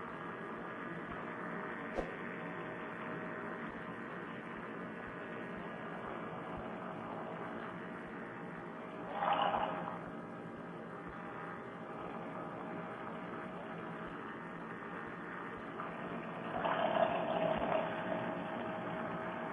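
Paramotor engine running steadily in flight, heard as a narrow, muffled hum through a Bluetooth helmet-headset microphone. Two brief louder swells come midway and near the end.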